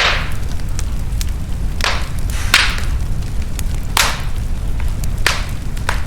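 Wood fire in a fireplace crackling, with a steady low rumble under it and half a dozen sharp pops spread through, the loudest right at the start.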